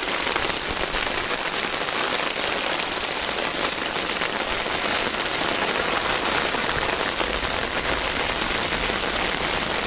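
Heavy rain falling onto standing floodwater over a concrete courtyard floor, drops pattering steadily on the water.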